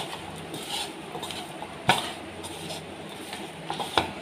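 A bare hand mixing chunks of boiled beef with soy sauce and spice powders on a plate: soft squishing and rubbing, with three sharp clicks against the plate, at the start, about two seconds in and near the end.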